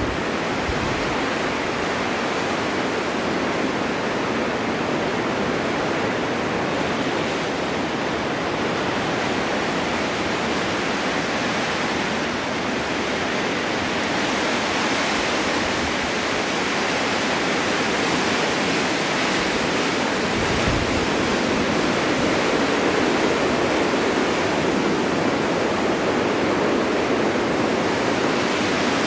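Winter snowstorm wind rushing steadily as a continuous even hiss, swelling slightly in the second half.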